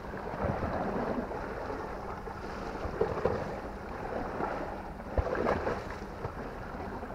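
Sea washing against rocks, with wind on the microphone, and a few brief handling sounds from the fishing line and rod.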